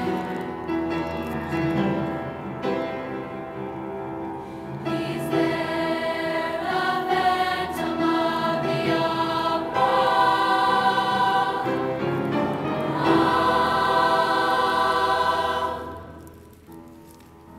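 A mixed youth choir singing in parts, building to its loudest near the end, then cutting off about a second and a half before the end.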